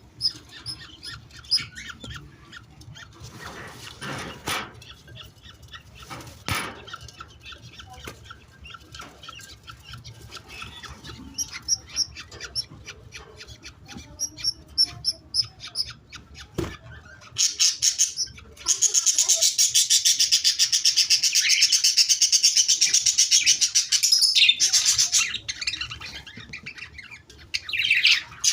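Budgerigar chicks calling: scattered high cheeps and a few knocks at first, then a loud, rapid, rasping chatter lasting several seconds from about two-thirds of the way in, typical of chicks begging for food.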